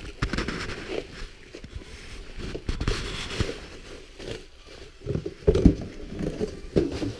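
Bubble wrap and cardboard packaging rustling and crinkling as a clutch pressure plate is pulled out of its box, with scattered knocks and a louder thump about five and a half seconds in.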